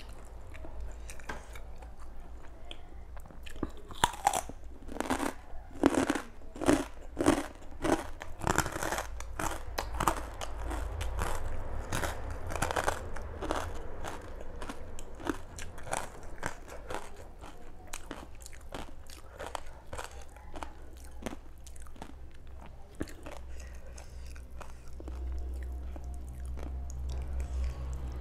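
Close chewing of crispy pork crackling: a run of sharp, crisp crunches, densest in the first half, that thin out into quieter chewing in the second half.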